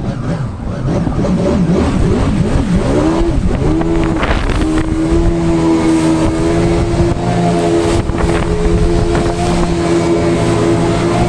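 Yamaha jet ski engine running hard, its pitch swinging up and down several times over the first few seconds, then holding a steady high note, with a constant rush of water and wind underneath.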